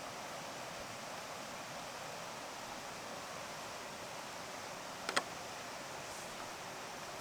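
A steady hiss, with a quick pair of sharp clicks about five seconds in.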